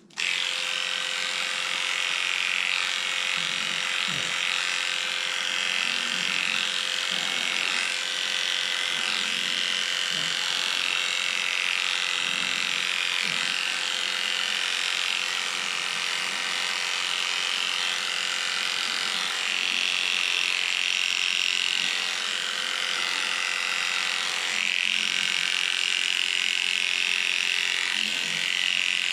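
Electric dog grooming clippers running with a steady buzz, cutting in abruptly right at the start.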